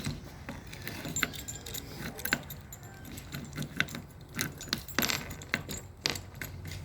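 Light metallic clicks and jingling, irregular, like small metal objects being handled and knocking together.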